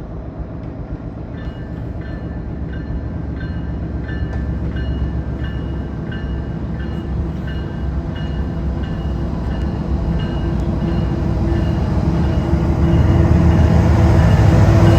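Train running on the rails, its rumble growing steadily louder, with short high squeaks repeating about twice a second.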